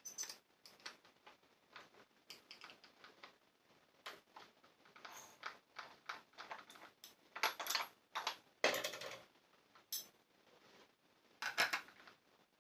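Irregular small metallic clicks, clinks and clatter of parts and hand tools being handled while a grinder's old wheel is swapped for a new masonry grinding wheel, with the loudest clatter about halfway through and again near the end.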